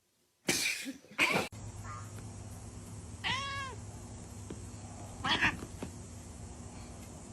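A cat meows once about three seconds in, a short call that rises and falls in pitch, over a steady low hum. Near the start there are two brief noisy bursts, and a shorter rough sound follows a couple of seconds after the meow.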